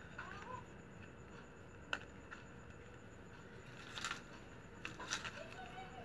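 Faint handling of flat plastic strap strips being woven by hand: a sharp click about two seconds in, and short crinkling rustles around four and five seconds in.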